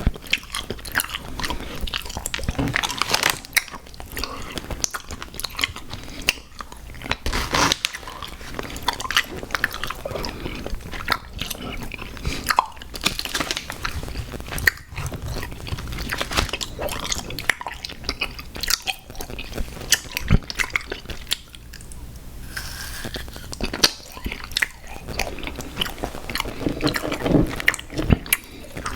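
Close-up eating of sour gummy worm candy cereal: continuous chewing and biting, with many irregular crunches and wet clicks of the mouth.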